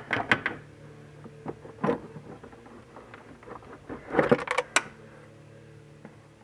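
Plastic and metal clunks and rattles as parts of a car's heater-core case are worked loose and pulled out from under the dashboard, in clusters at the start, about two seconds in, and again around four to five seconds, over a steady low hum.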